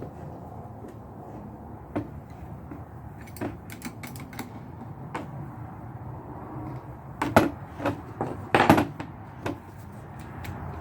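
Hand rivet nut tool being worked: scattered metal clicks and clacks, bunching into a louder run of knocks about seven to nine seconds in as the rivet nut is set.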